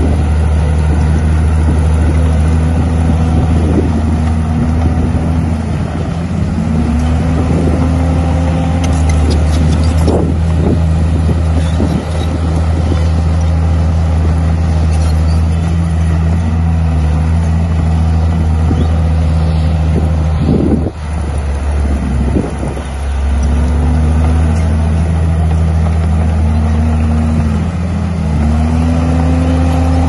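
Heavy diesel engine of a Komatsu D51 bulldozer running under load, its pitch repeatedly rising and falling. A few knocks sound about a third of the way in and again about two-thirds through.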